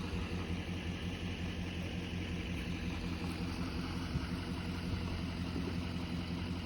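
Diesel engine idling steadily with a low, even hum.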